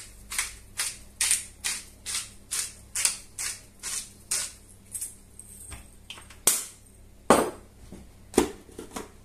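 Hand-twisted pepper grinder milling peppercorns, a crisp crunch with each twist at about two and a half a second, followed by a few louder sharp knocks in the second half.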